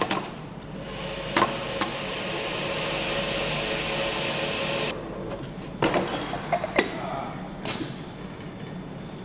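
Automated multi-spindle assembly machine working on an aluminium engine block: sharp metallic clunks, then a steady hiss for about four seconds that cuts off suddenly, followed by more clunks and a brief hiss near the end.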